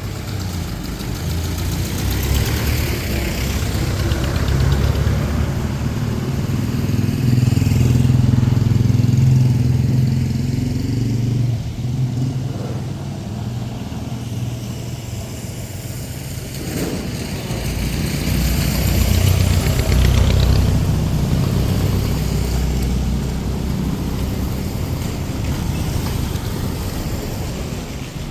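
Motor vehicle engines running close by in street traffic, swelling twice as vehicles pass: once about a third of the way in and again past the middle.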